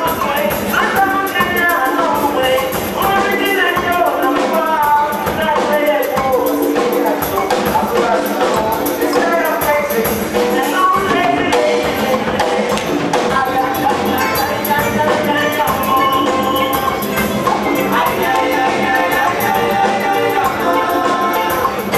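Live band music: drums and percussion keeping a dense rhythm under moving melodic instrument lines, playing without a break for the dancers.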